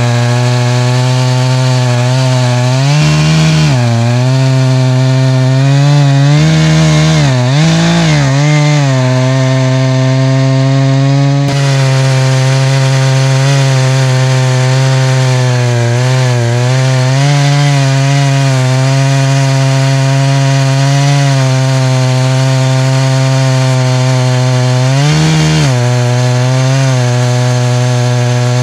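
Echo CS-590 Timberwolf two-stroke chainsaw running at full throttle, ripping a black ash log lengthwise into slabs in a chainsaw mill. The engine note holds steady, with brief dips in pitch where it bogs under load: a few seconds in, twice around seven to eight seconds, and near the end.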